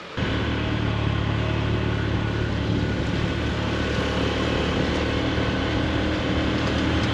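Honda CB150 single-cylinder motorcycle engine running at a steady cruising speed, heard from the rider's seat with wind noise over it. It cuts in suddenly a fraction of a second in.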